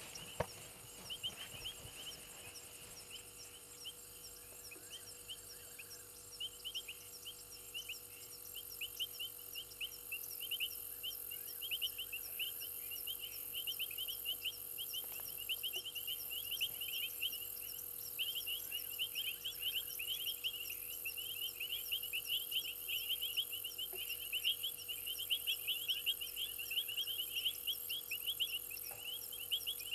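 A night chorus of frogs and insects at a waterhole: dense, rapidly repeated short chirps with a high, steady insect buzz above them, growing louder about a third of the way in. Near the start there is a single sharp knock as two sparring African elephant bulls clash tusks.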